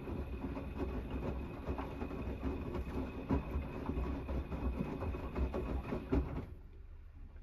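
Gorenje WNEI front-loading washing machine drum tumbling wet, sudsy laundry in the main wash of a 90 °C cotton programme: motor hum with irregular thuds as the clothes drop. It stops abruptly about six and a half seconds in as the drum comes to rest, leaving a faint hum.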